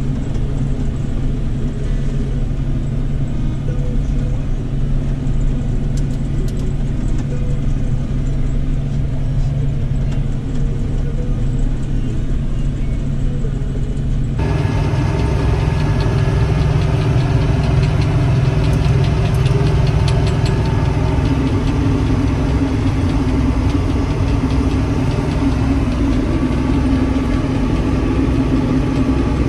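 Claas Dominator Mega 208 combine harvester's engine and machinery running steadily, heard from inside the cab while it travels along a track. About halfway in the sound changes abruptly to a fuller, brighter running as the combine harvests grain.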